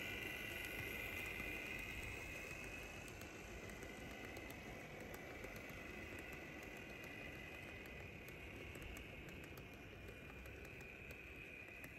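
Faint running of an N gauge model freight train: the Class 66 locomotive's small electric motor whines and the container wagons' wheels rumble and click over the track. The whine fades over the first few seconds as the locomotive moves away.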